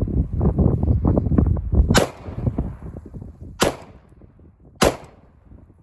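Wind buffeting the microphone, then three single gunshots: one about two seconds in, one at about three and a half seconds and one near five seconds, each followed by a short echo.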